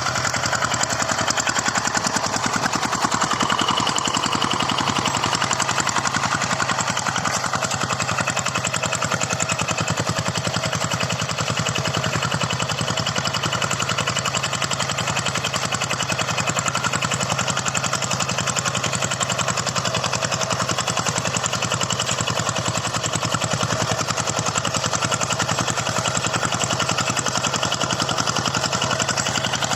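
Single-cylinder diesel engine of a walk-behind hand tractor running steadily while ploughing, with a rapid, even firing beat.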